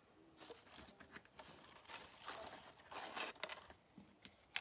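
Faint rustling and scraping of paper tags being handled and slid on a sheet of paper, with a sharp click at the end.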